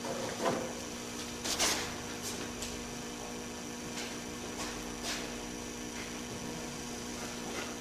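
Steady electrical hum, with a few faint knocks and taps scattered through it.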